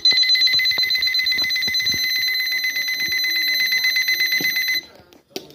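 Alarm clock buzzer sounding: a loud, high, fast-pulsing buzz that cuts off abruptly near the end.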